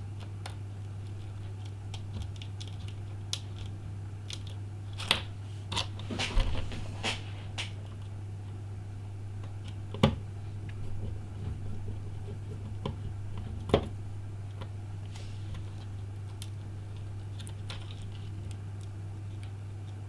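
Small clicks and taps of tools and tiny phone parts being handled on a work surface, irregular, with a busier cluster about a quarter of the way in and two sharp clicks around the middle, over a steady low hum.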